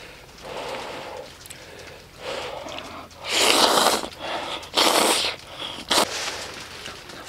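A person slurping instant black-bean noodles: two long, loud slurps a little past halfway and a short sharp one near the end, with softer breathy sounds before them.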